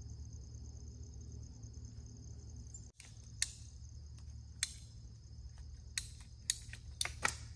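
Crickets chirping steadily. About three seconds in, a series of about six sharp clicks and knocks of PVC pipe and couplings being handled and pushed together dry, without glue.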